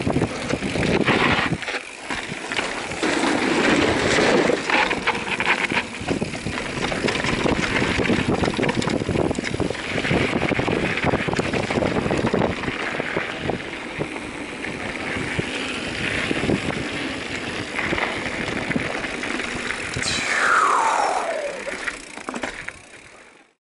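Mountain bike riding fast down a gravel trail: tyres crunching over gravel, the bike rattling over bumps and wind buffeting the microphone. A falling whistle-like tone comes about twenty seconds in, and the sound fades out at the end.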